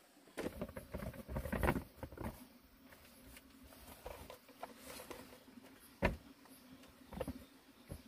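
Rustling and handling of gear and bedding for the first couple of seconds, then quieter shuffling, with a sharp knock about six seconds in and a smaller knock about a second later.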